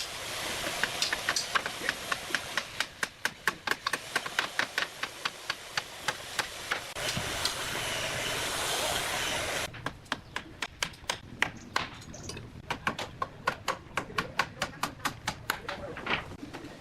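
Rapid, evenly paced hammer strikes on wood, about three or four a second, over a steady machine hiss that cuts off abruptly about ten seconds in.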